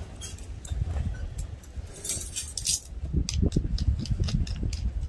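Wind rumbling on the microphone, with a run of quick light clinks and taps over the last two seconds.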